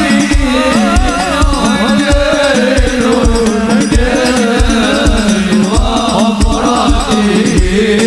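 Sholawat, an Islamic devotional song: a lead voice sings a wavering, ornamented melody over hand-drum percussion, with a deep, boomy bass beat about three times a second.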